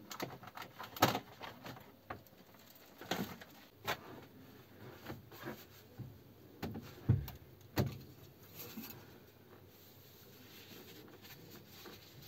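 Knocks and clatter of wooden cabin panels being handled as the boat's engine cover is taken off: about a dozen sharp bumps, the loudest about one and seven seconds in. The engine is not running.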